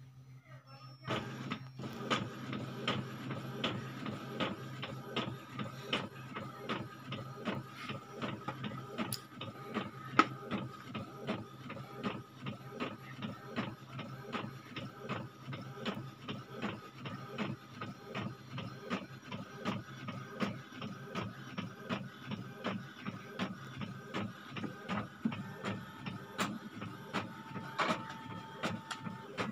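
Photocopier running a copy cycle as its scanner light bar sweeps under the glass: a steady machine hum with regular mechanical clicking, about three clicks a second, starting about a second in.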